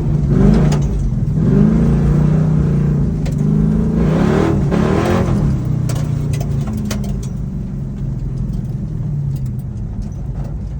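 Truck engine revving hard on a dirt track. Its pitch rises and falls several times over the first five seconds, then it runs steadier and slowly fades, with a few light clatters.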